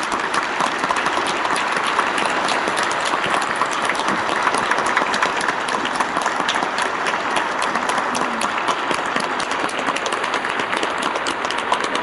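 Stadium crowd applauding steadily, a dense patter of many hands clapping.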